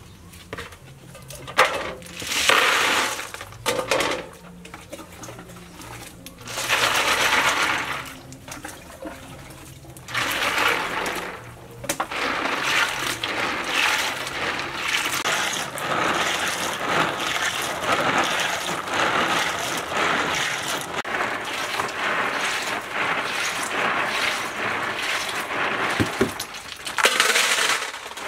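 Freshwater snails being scrubbed by hand in a plastic bowl of water, their shells clattering and clicking against each other amid sloshing water. The first few seconds hold several separate bouts of splashing water, then the scrubbing runs continuously.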